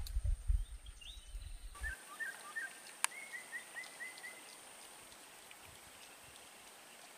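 Outdoor ambience: a low rumble on the microphone for the first two seconds, then a bird calling a quick run of short, repeated notes around the two- to four-second mark, just after a sharp click. After that only a faint steady background.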